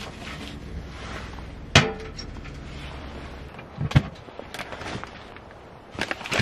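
Handling knocks: one sharp knock about two seconds in, a second knock about four seconds in, and a quick run of clicks near the end as the latched lid of a plastic storage box is opened.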